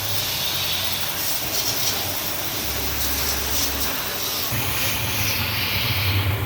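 Pressure washer jet hissing steadily as it sprays the scooter, with the washer's motor humming low underneath, stronger in the second half.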